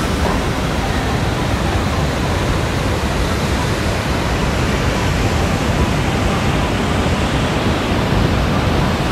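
Nairn Falls' waterfall rushing: a loud, steady, even noise of falling water with no breaks.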